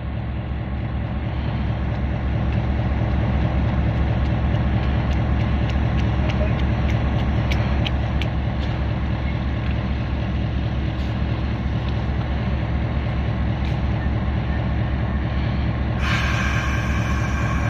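Taiwan Railway R40 diesel-electric locomotive's engine running at the platform, a steady low throb that grows louder over the first few seconds and then holds. Near the end a cluster of higher steady tones comes in suddenly over it.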